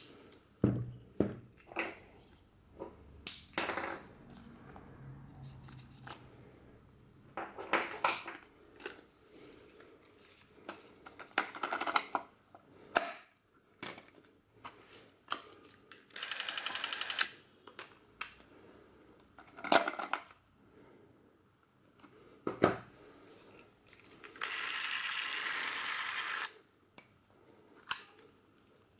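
Clicks, snaps and knocks of a Bauer C 1 Super 8 cine camera being handled, its film door shut and switches worked. Twice, for about two seconds each (about 16 s in and again near 24 s), the camera's battery-driven motor and film transport run with a steady whirr.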